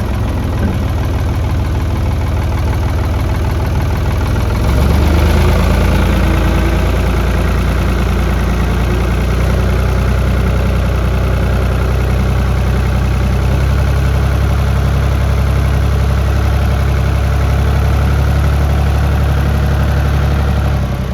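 Ford 550 tractor backhoe's engine running as the machine is driven, rising in level about five seconds in, holding steady, then easing off near the end.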